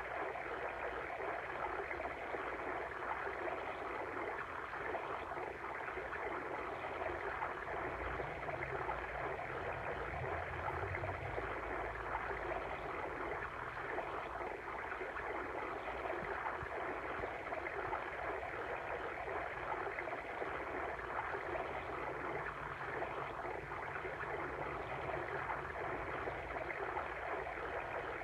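Steady water stream: water running and gurgling over stones, an even rushing sound.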